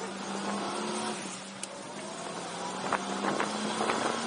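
Go-kart engine running at a steady pitch, heard from on board the moving kart, with a few sharp clicks about three seconds in.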